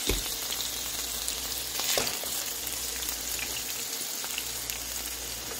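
Seasoned fish fillets frying in hot olive oil in a nonstick frying pan, a steady sizzle that swells briefly about two seconds in.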